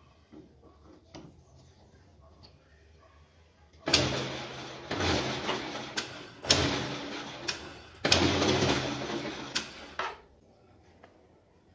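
Homemade lathe running with its three-jaw chuck spinning, a loud rushing, rattling machine noise that swells and falls several times for about six seconds and then stops. Before it starts, faint clicks as the tapered shank is set in the chuck jaws by hand.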